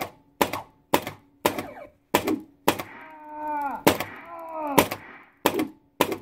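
A custom "whip" sound effect from the electromechanical pinball machine's added sound board, cracking again and again, about twice a second, as the slingshot switch is triggered. Two falling, wailing tones sound in the middle.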